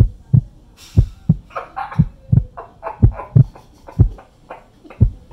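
Heartbeat sound effect: pairs of deep thumps, lub-dub, about once a second.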